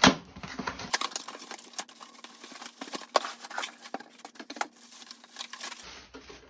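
Cardboard box and packaging being opened and handled: a sharp knock to begin, then a steady run of rustling, scraping and small clicks.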